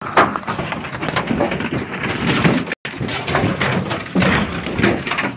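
Commotion in a small boat as an alligator lunges aboard: dense knocking, scuffling and handling noise from a jostled phone. The sound cuts out for an instant twice.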